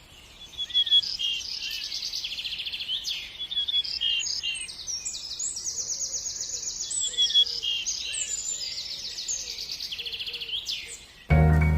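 Ring-necked parakeet chattering in a long run of quick, high-pitched chirps and rapid trills. Music starts suddenly near the end.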